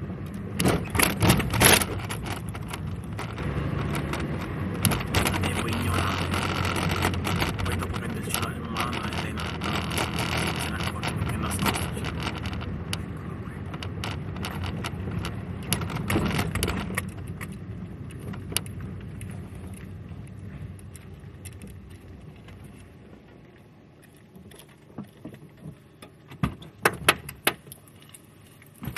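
Car cabin noise while driving: steady engine and road noise that dies down over the second half. Sharp clicks and rattles come about a second in, and a cluster of clicks and knocks comes near the end.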